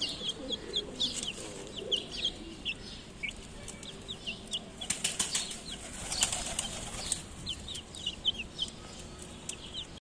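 Young chickens peeping: short, high, downward-sliding cheeps, several a second, as the chicks forage in the coop litter. A louder scuffling flurry comes about five to seven seconds in.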